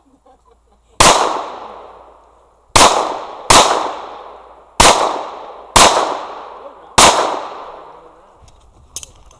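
Six pistol shots fired in a string at uneven intervals about a second apart, each a sharp crack that trails off in a long echo.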